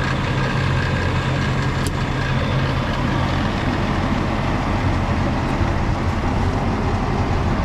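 Farm machinery engine running steadily at an even, low pitch while feed is being mixed.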